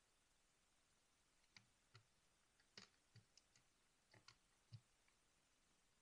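Faint, irregular plastic clicks and soft knocks, about a dozen in a few seconds, as keycaps are worked off a mechanical keyboard with a wire keycap puller.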